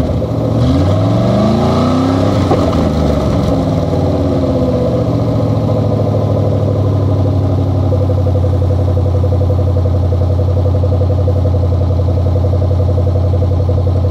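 Rover P6's 3.5-litre aluminium V8 engine running with no car around it. About a second in, it is revved up, and its pitch falls back over the next few seconds. It then settles to a steady idle.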